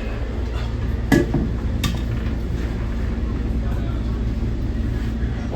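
Nippon Sharyo diesel multiple unit running with a steady low rumble and a constant hum, with two sharp knocks, one just after a second in and another under a second later.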